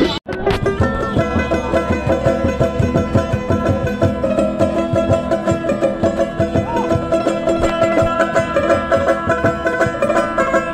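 A banjo strummed quickly in an instrumental Bengali Baul folk passage, over a steady drum beat. The sound drops out for an instant just after the start.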